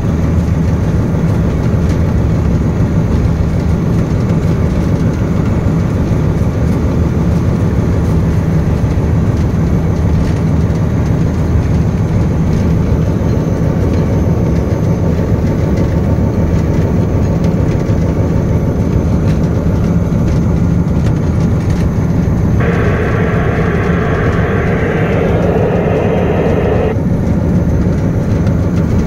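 Diesel locomotive engine running steadily under power at a high throttle notch, a constant low drone. About 23 seconds in, a louder, higher-pitched sound starts abruptly, lasts about four seconds and cuts off.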